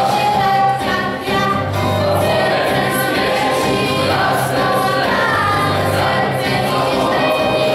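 A youth choir of girls and boys singing a song together, over a steady low accompaniment.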